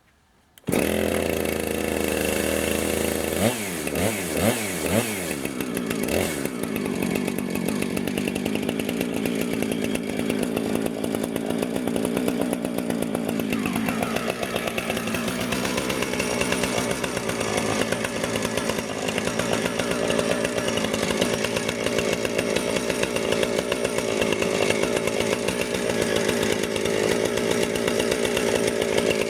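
Husqvarna Rancher 455 two-stroke chainsaw with a 24-inch bar and ripping chain, ripping a log lengthwise in a chainsaw mill. It cuts in suddenly about a second in, its engine pitch swings up and down a few times over the next few seconds, then it runs steadily under cutting load.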